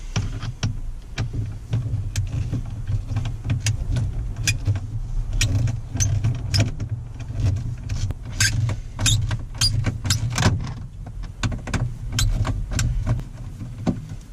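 Plastic interior trim clips and tabs clicking and snapping as a Toyota Tacoma dashboard console panel is pried and worked loose, many sharp irregular clicks over a steady low hum.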